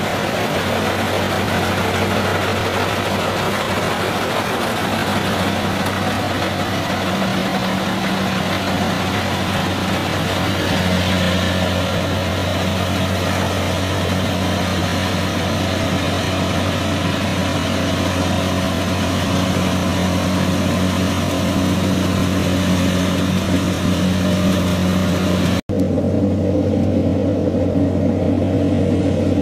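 Kubota DC-70 combine harvester running steadily as it cuts and threshes rice: a constant low engine hum under a dense rushing, rattling noise from the machine. Near the end the sound breaks off for an instant and comes back duller and more distant.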